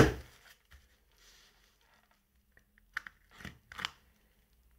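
Fingers picking at the packing tape and plastic wrap on a cardboard parcel: four short, sharp crackles about three seconds in, after a quiet stretch.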